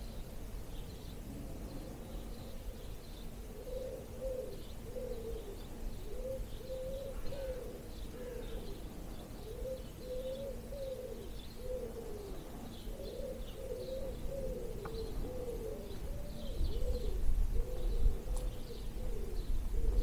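Pigeons cooing in a long run of repeated low, rounded coos, with small songbirds chirping faintly in the dawn chorus. Low wind rumble on the microphone grows louder over the last few seconds.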